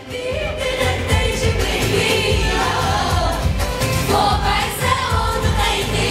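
A woman singing into a microphone over loud amplified party music with a steady beat, other voices singing along.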